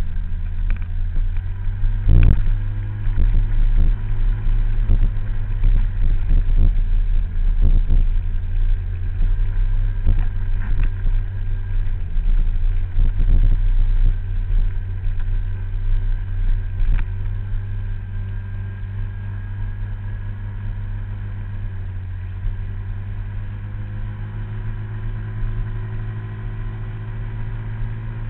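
Scooter engine running steadily at a cruising pitch while riding, heard from on the machine. Sharp knocks and rattles from the rough village road come often in the first half and thin out later.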